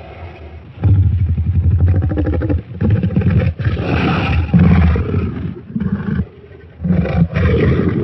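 Designed dinosaur sound effect for Carcharodontosaurus saharicus: a series of deep, rattling growl-roars. They start about a second in and come in long calls with short breaks, ease off briefly around six seconds, then one more roar comes near the end.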